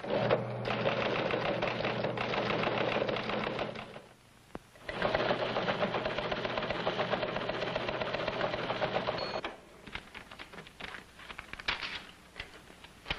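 Teletype machine clattering in two long runs of rapid, even mechanical chatter, with a short pause between them, as an order goes out over the wire. Near the end the clatter stops and only a few scattered clicks and knocks remain.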